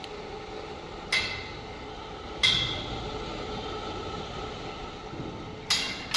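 Metal struck four times, each sharp clink ringing briefly, over a steady machine hum.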